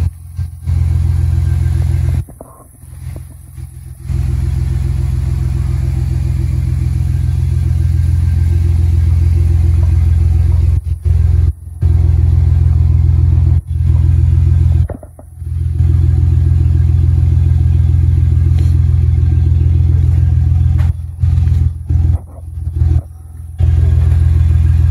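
Pickup truck's engine running with a deep, steady rumble, broken by several abrupt gaps.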